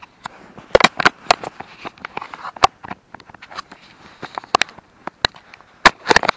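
A run of loud, irregular sharp clicks and cracks, clustered about a second in and again near the end.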